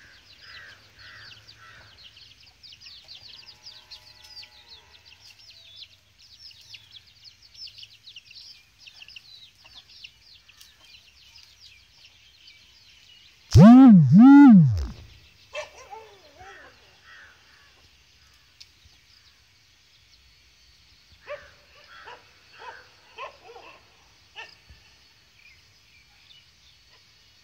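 Birds chirping in a dense, fast chorus for the first half, then two loud, short animal calls that each rise and fall in pitch just past the middle, followed by scattered fainter calls.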